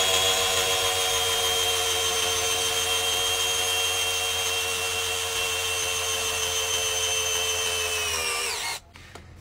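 APR AP17 cordless drill in screw mode, its motor whining steadily as it drives a wood screw into hard, dry dead wood. The pitch sinks slightly over several seconds, then winds down and stops near the end as the screw seats.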